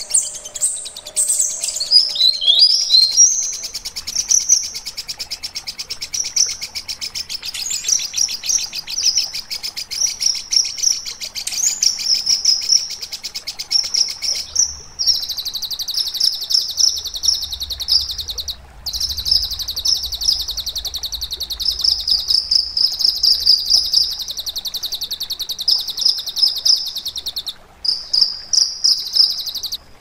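A caged kinoi songbird singing loud, high-pitched rapid chattering trills and warbled phrases. About halfway through, the song turns into a long, continuous fast buzzing trill that breaks off briefly twice.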